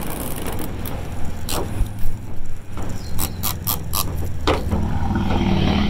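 Red plastic liner being peeled off 3M double-sided foam tape on a plastic fender flare: scattered crackles and sharp clicks, most in the middle seconds, over a steady low rumble.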